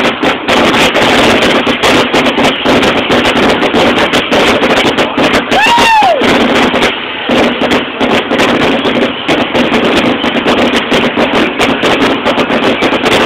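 Fireworks crackling and popping densely and loudly, with a voice calling out once, rising then falling, about six seconds in.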